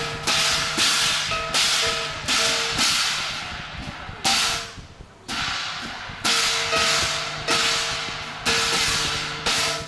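Chinese qilin-dance percussion: large brass hand cymbals clashed in a loose rhythm, about one crash every half second to second, each ringing out in a long shimmering wash over a steady low ring. The playing eases briefly a little before the middle, then picks up again.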